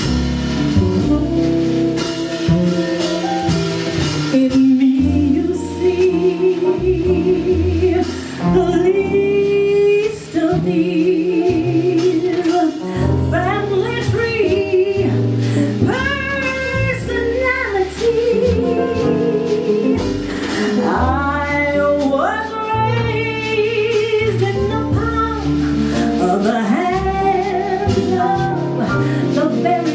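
Live jazz ballad: a woman sings with vibrato over a band with guitar and bass.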